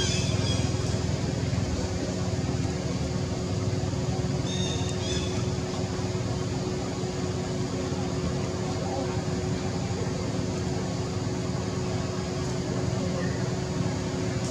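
Steady low motor hum with a constant drone tone running underneath, and a short high chirp about four and a half seconds in.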